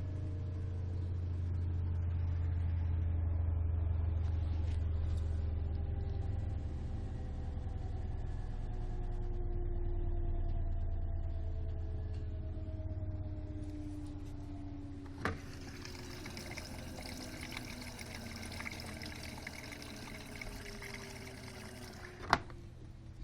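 Samsung WD136 front-load washer-dryer with its drum spinning down: a low hum and motor whine that slowly fall in pitch and fade. A sharp click comes about fifteen seconds in, then a soft hiss, and another sharp click comes near the end.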